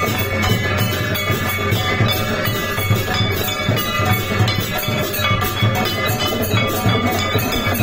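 Handheld brass gong plate beaten rapidly and repeatedly with a stick as aarti percussion, its metallic ringing piling up into a continuous clanging rhythm.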